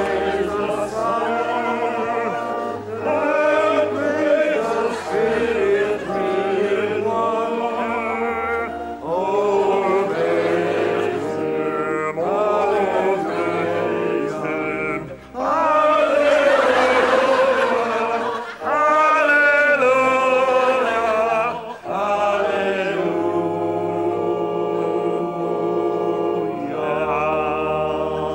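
Church congregation singing a hymn together, voices holding long notes, with brief pauses between lines.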